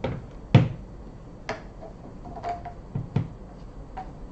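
Handling knocks and clicks from a cordless angle grinder as its side handle is taken off and fitted on the top; about seven separate knocks, the loudest about half a second in.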